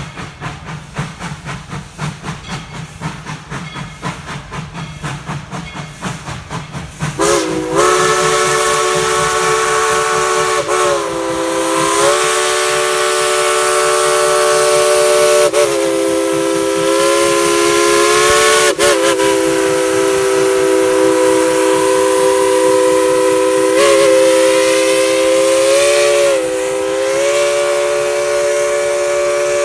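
Steam locomotive working with a steady rhythm of exhaust chuffs, then about seven seconds in its whistle sounds a long, loud chord of several notes, held for over twenty seconds with a few brief dips and re-blows.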